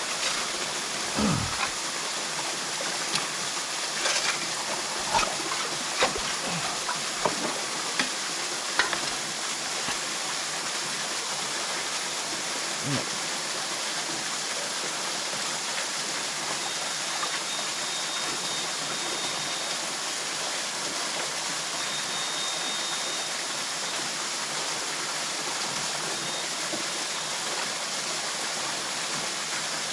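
Steady rush of creek water, with a scattering of sharp knocks and clacks over the first dozen seconds as rocks are dug and shifted by hand, then only the water.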